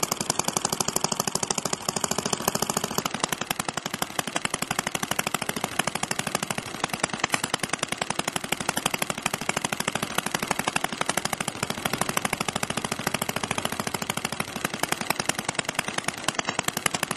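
Scale model of an Ishijima slow-speed stationary farm engine running, giving a rapid, even train of sharp beats. A faint high whine stops about three seconds in.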